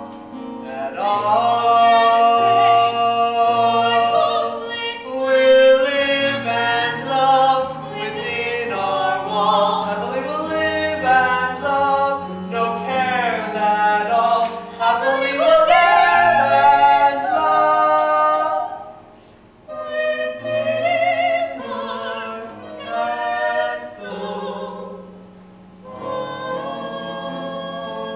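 Live singing from a stage musical: a slow duet sung over a sustained instrumental accompaniment, the singing pausing briefly twice in the later part.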